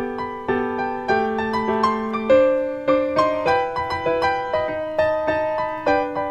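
Background piano music: a gentle melody of struck notes, about two a second, each note fading after it is played.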